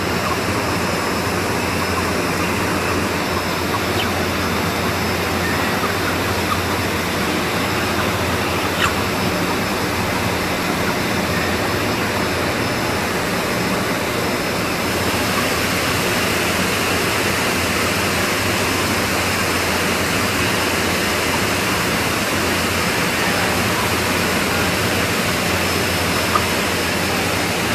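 Steady, loud mechanical roar of slaughterhouse machinery, with a low hum underneath.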